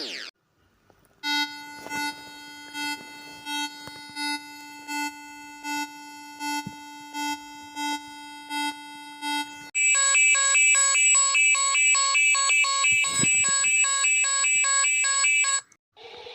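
Electronic emergency alert tones. First a steady tone with a beep repeating about once every 0.7 seconds for around eight seconds, then a louder, rapidly pulsing alarm tone for about six seconds that cuts off suddenly.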